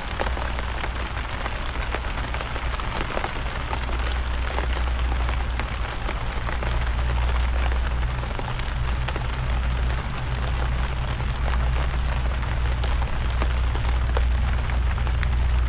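Heavy rain falling steadily, a dense hiss of countless drops pattering, with a steady low rumble underneath.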